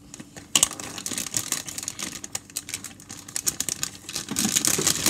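Plastic bag of pretzels crinkling as it is handled, a dense run of small crackles and clicks starting about half a second in.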